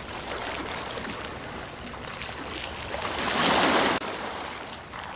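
Water splashing and running, growing louder for about a second past the middle and then cutting off abruptly.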